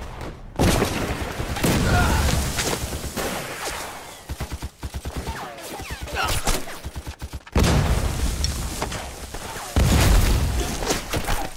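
Battle sound effects: heavy gunfire and explosions. A loud blast comes just after the start, another a little past halfway and a third near the end, with rapid machine-gun fire between them.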